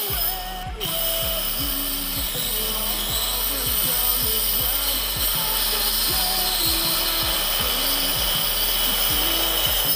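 Homemade mini circular saw running and cutting through a thin square wooden strip, with a steady high-pitched whine, under background electronic music with a steady beat.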